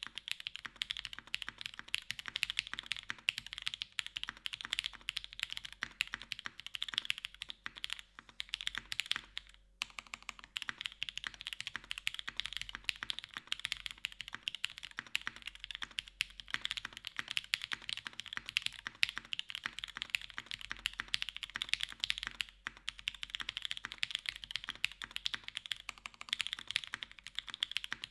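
Steady, fast typing on a TGR Jane V2 CE custom mechanical keyboard with Pewter switches on a carbon fibre plate, top-mounted, with GMK keycaps: a dense run of keystroke clacks with a brief pause about ten seconds in.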